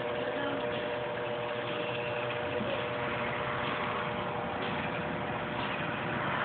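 A steady motor hum with a constant two-note drone, unchanging throughout.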